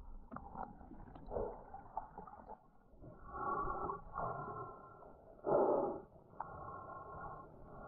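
Muffled water sloshing and gurgling as heard by a diver's camera in the sea, with swells of louder rushing about three seconds in and again around five and a half seconds.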